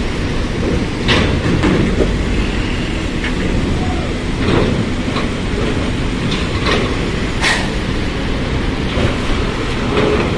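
Long-distance bus driving aboard a ferry: steady engine and tyre rumble with irregular knocks as it rolls over the ramp and deck.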